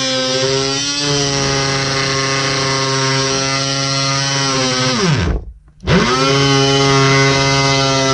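DeWalt DWE315 oscillating multi-tool running with a steady whine as its half-round blade cuts into oak trim. About five seconds in it winds down to a stop, then spins straight back up to full speed.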